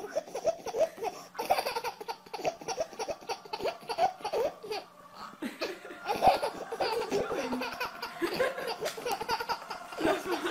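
A baby laughing in quick repeated bursts, with a brief lull about halfway through.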